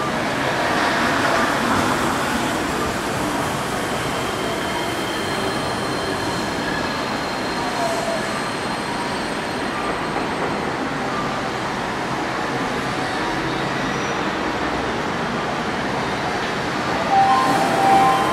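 Yui Rail 1000-series monorail train pulling into an elevated station, with a steady running rumble and thin, high inverter (VVVF) whine tones. A few brief, louder tones come near the end.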